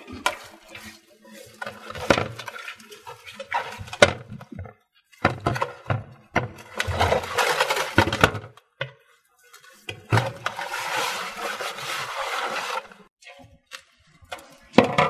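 Raw chicken being rubbed and turned by hand in an aluminium basin: irregular wet rubbing and scraping, with scattered knocks of the bird against the basin.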